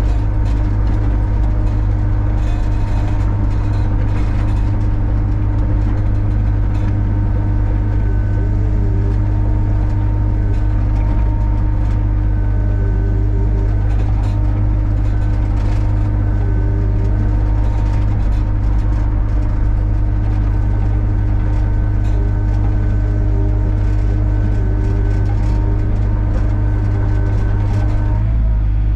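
Mini excavator's diesel engine running at a steady speed as the machine travels: a constant low drone with steady whining tones over it, shifting slightly near the end.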